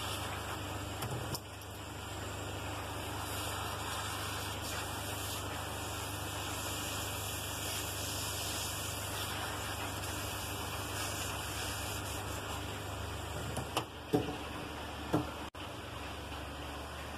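Handheld electric blower running steadily, a constant rush of air with a low hum, blown over phone circuit boards to dry them. A few sharp clicks of parts being handled near the end.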